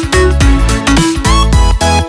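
Loud electronic dance music with a heavy bass and a steady beat.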